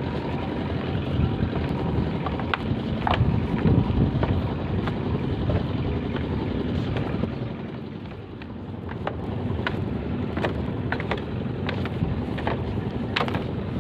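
Wind noise on the microphone, with scattered sharp clicks and creaks of footsteps on a bamboo walkway; the wind eases briefly about eight seconds in.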